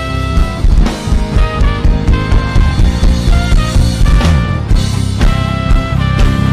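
Live worship band playing an instrumental passage: saxophone and trumpet holding the melody over a drum kit keeping a steady beat.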